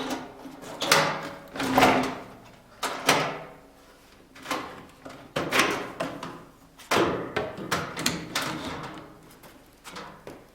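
Hard plastic clunks, knocks and rattles as the INTERTOOL DT-1030 shop vacuum is opened up: its latches undone and its head lifted off the tank, a dozen or so separate knocks.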